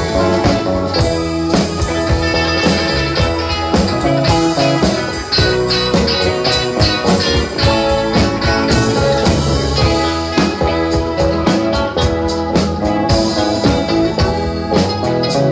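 Live rock band playing an instrumental passage with no singing: electric guitars over electric bass, drum kit and electric keyboard, with regular cymbal strokes in the second half.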